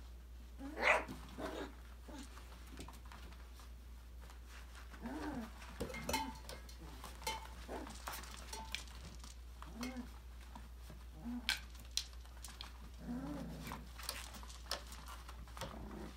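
Labradoodle puppies giving short yips and small whimpering growls as they play, the loudest yip about a second in. Scattered light clicks and clinks from the toys run through it.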